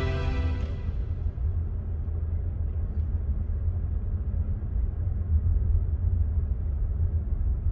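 Steady low rumble of a car being driven, engine and tyre noise on the road. Background music fades out within the first second.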